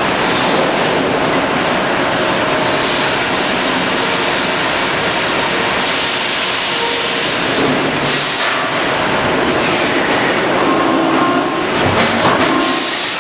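Sawmill machinery running loudly and steadily, with a rail-like rumble and clatter typical of a log carriage running on its track. There are brief spells of sharper noise about six and eight seconds in and again near the end.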